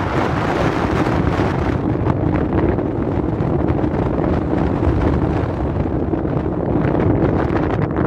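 Strong wind buffeting the microphone over a steady low rumble and hum.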